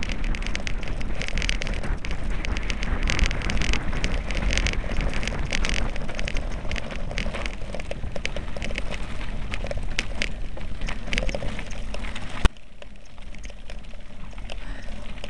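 Bicycle tyres rolling fast over loose gravel: a dense crackle of stones under the wheels over a low wind rumble on the microphone. A sharp knock comes near the end, after which the crackle is quieter.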